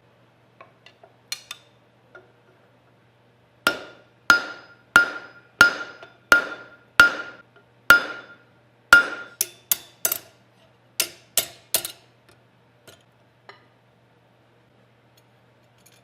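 Hammer blows on metal: about eight evenly paced strikes, each with a short metallic ring, followed by a quicker run of lighter strikes and a few soft taps near the end.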